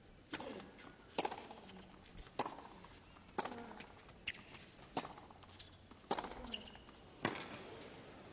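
A tennis serve and rally on a hard court: sharp pops of racket strikes and ball bounces, about one a second, eight in all, with little sound between them.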